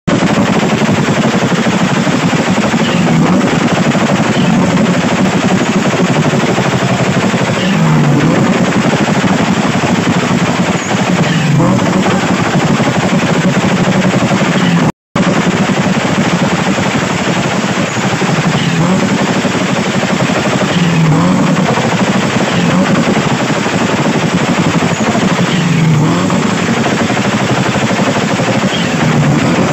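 Car engine held on a two-step launch rev limiter, its exhaust popping and banging in a rapid, continuous machine-gun-like rattle. The sound cuts out for an instant about halfway through.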